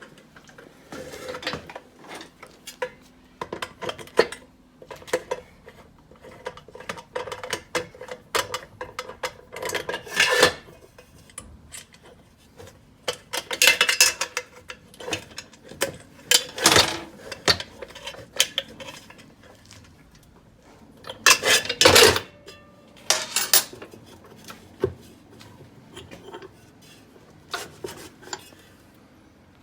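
Metal parts and tools clinking and clattering against each other at irregular intervals, some knocks ringing briefly, as a fire hose reel swivel is handled and taken apart.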